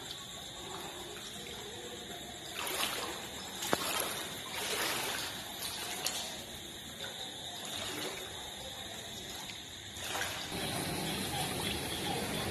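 Floodwater sloshing and trickling, with splashes. It is fainter for the first couple of seconds and gets louder about ten seconds in.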